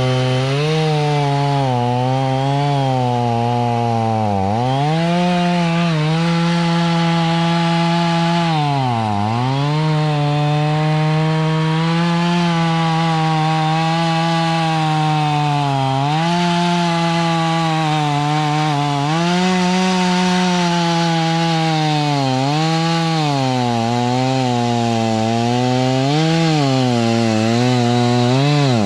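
Rural King RK55 tractor's diesel engine driving a Woodland Mills WG24 PTO stump grinder through a stump. The engine pitch sags again and again as the cutter wheel bites into the wood and loads it, then climbs back between passes, with the rasp of the wheel chewing wood on top.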